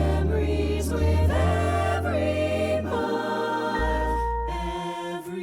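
Background music: slow, held notes over a low bass that shifts every second or two.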